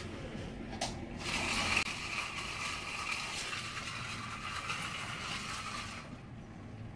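Hurricane wind and driving rain, a steady rushing that strengthens about a second in and eases off near the end.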